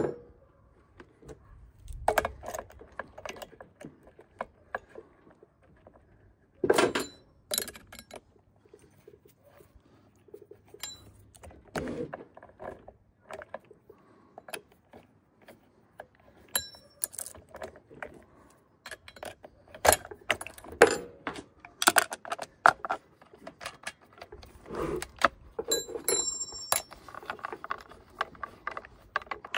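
Metal-on-metal handling of a chainsaw's parts as a 0.325-pitch chain, sprocket rim and guide bar are fitted by hand: scattered sharp clicks, clacks and chain-link jangles, with a few brief metallic rings about halfway and again near the end.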